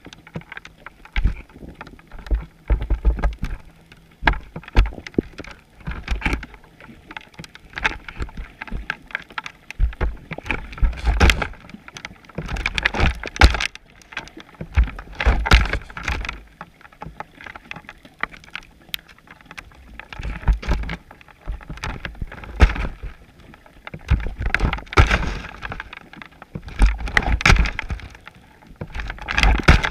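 Underwater knocking and rattling of a chum pot rig, heard through a GoPro's waterproof housing: irregular clusters of clicks and low thumps every second or two, with short quieter gaps between.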